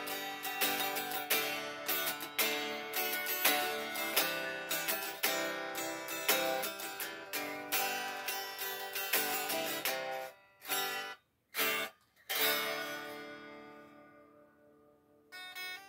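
Solo guitar playing freely without a set plan: a quick run of plucked notes and chords. It breaks off abruptly twice about ten seconds in, then a last chord rings out and fades away before new notes start near the end.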